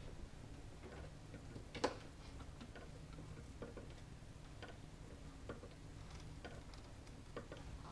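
Faint, irregular clicks and light taps over a low steady hum, with one sharper knock about two seconds in.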